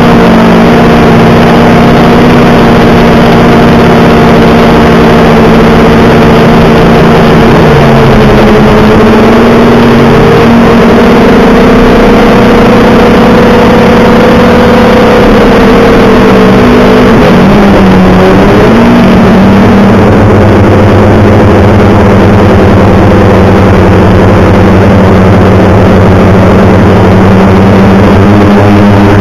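An engine running loud and steady, with its pitch dipping briefly about a third of the way in and settling to a different steady note a little past the middle.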